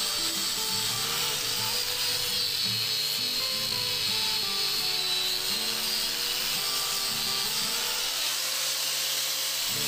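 Doliz BA730 angle grinder with a hook-and-loop sanding pad running at full speed against a wooden beam, sanding the surface: a steady high whine with a rasp from the pad. Background music plays underneath.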